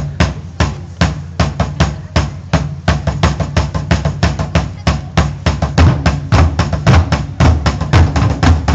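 Japanese taiko drums struck with wooden sticks in a steady rhythm of deep, sharp strokes, about two to three a second at first, the pattern growing denser about three seconds in.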